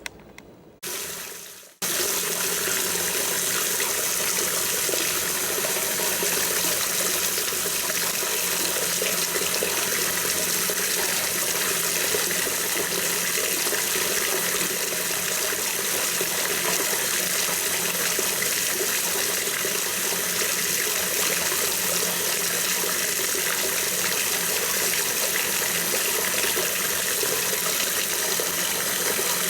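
Water rushing steadily at full flow, after a brief short burst about a second in, in a job on a washing machine's inlet valves.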